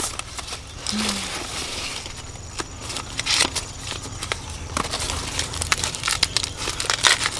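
Corn plants rustling and crackling, with repeated short sharp snaps and cracks, as ears of corn are broken off the stalks by hand.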